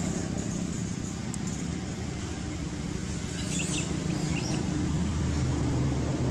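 Steady low hum of a motor vehicle's engine, growing louder near the end, with a few brief high chirps a little past the middle.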